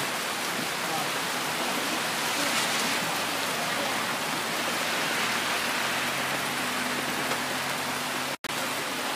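Steady rain falling, an even hiss of water on the ground and surfaces. A faint low hum joins in in the second half, and the sound cuts out for an instant near the end.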